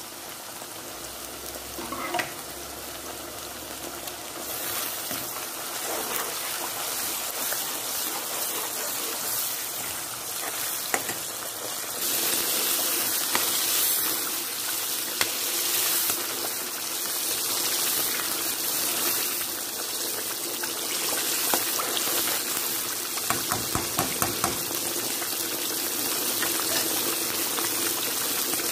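Onions, pepper and tomato frying in oil in a nonstick pan, sizzling steadily, as cooked tomatoes are added and stirred in. The sizzle grows louder about four seconds in and again around twelve seconds, and a quick run of taps comes late on.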